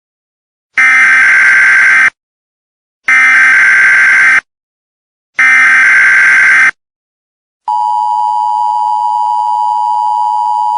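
Emergency Alert System tones: three loud, one-second bursts of the SAME digital header's warbling data tones, a second or so apart. About eight seconds in, the steady two-tone EAS attention signal starts and holds.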